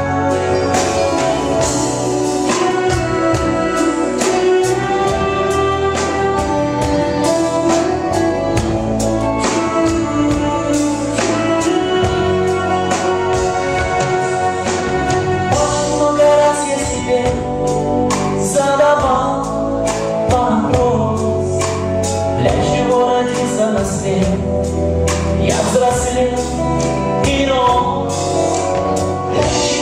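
Live pop concert music: a band with electric guitar over a steady beat, with singing.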